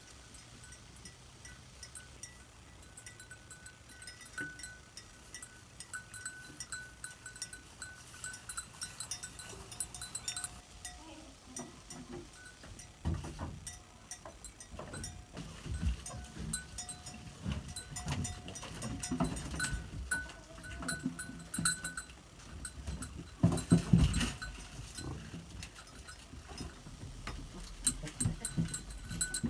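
Goats moving about and calling, with clinks and knocks throughout and louder low thumps in the second half, the loudest a little before the end.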